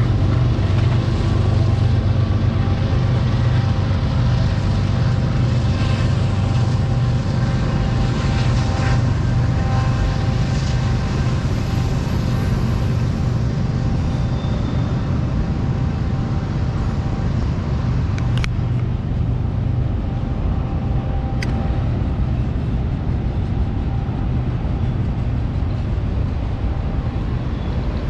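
Freight train rolling past, a steady low rumble of the cars running on the rails. Two faint clicks come in the second half.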